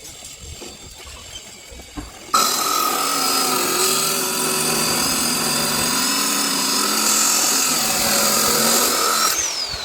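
A power tool starts abruptly about two seconds in and runs at a steady speed for about seven seconds, then shuts off and winds down with a falling whine.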